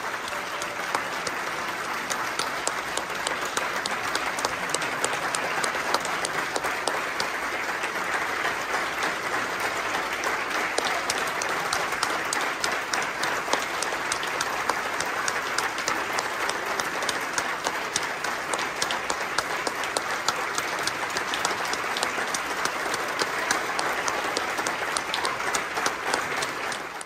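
Audience applauding: dense, steady clapping that cuts off suddenly near the end.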